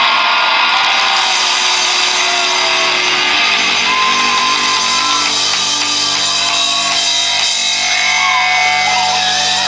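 Live rock band playing loudly: distorted electric guitar with drums and crashing cymbals, a dense, steady wall of sound with a few sliding pitches over it.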